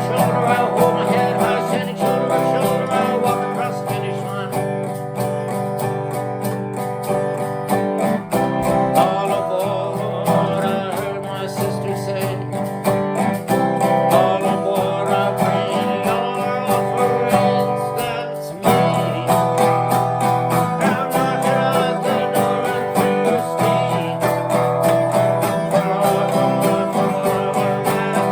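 Music: an acoustic guitar strummed and picked in a steady rhythm, with a voice singing along at times. It drops away briefly about two-thirds of the way through, then comes back in.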